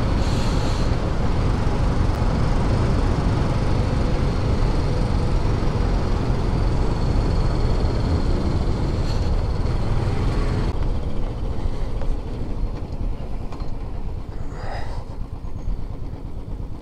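Motorcycle engine running under way, heard from the rider's camera with rushing wind noise over it. The wind noise drops away about eleven seconds in as the bike slows.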